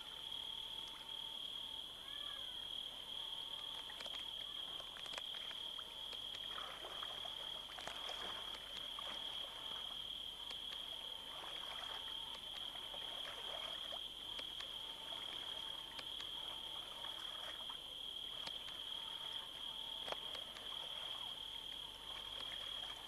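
Crickets trilling in one steady, unbroken high note, with soft water splashing as a child swims in a pool.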